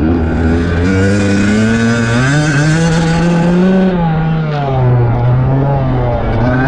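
Dirt bike engine heard from on board, revving up as the bike accelerates: the pitch climbs for nearly four seconds, drops as the throttle eases about four seconds in, then climbs again.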